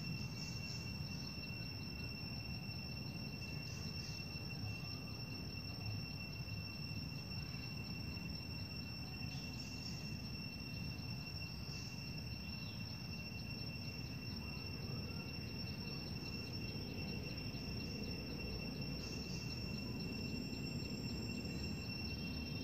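Insects trilling without pause at two steady high pitches, with a few brief higher chirps now and then over a low background rumble.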